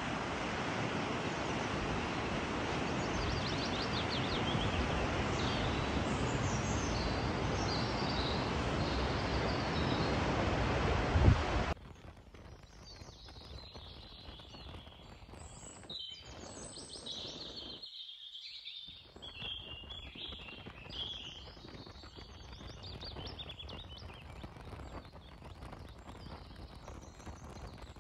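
Wind blowing on the microphone, a steady rushing noise with a few faint bird chirps, which cuts off abruptly about twelve seconds in. After that, quiet outdoor background with small birds chirping repeatedly.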